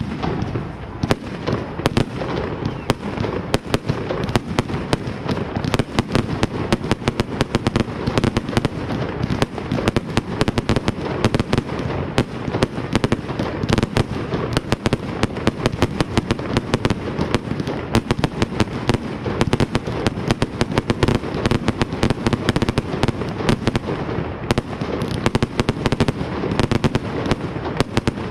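Fireworks going off in a dense, continuous stream of bangs and crackles, many a second, with no pause.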